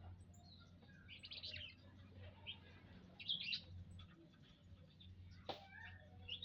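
Munias giving faint, high chirps in two short clusters, about a second in and just past three seconds in. A brief sharp click comes near the end.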